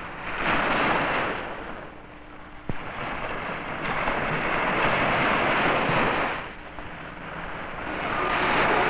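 Ocean surf breaking and washing up on a beach, the rush of noise rising and falling in three long swells. A single sharp click comes a little under three seconds in.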